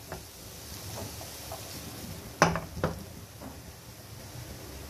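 Wooden spatula stirring chicken and chopped vegetables in a non-stick frying pan, with light scrapes and clicks and two sharper knocks against the pan about two and a half seconds in.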